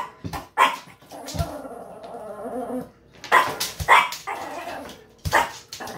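Small dog barking, about five short sharp barks spaced irregularly across a few seconds, with quieter sounds between them.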